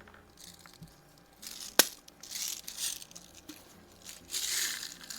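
Hand-handling noises: several short rustles and crinkles, with one sharp click a little under two seconds in.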